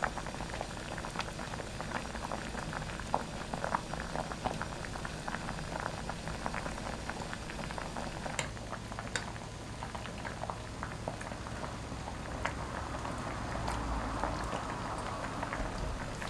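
Zucchini gochujang stew boiling hard in a stainless steel pot: a steady bubbling with many small pops as the broth churns.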